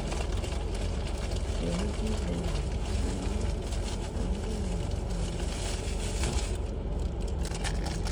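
A car running, heard from inside the cabin: a steady low rumble.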